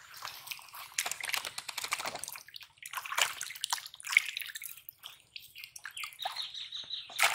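Two live fish thrashing in a plastic tub of water, sloshing and splashing in irregular bouts: about a second in, again around three seconds, and hardest near the end.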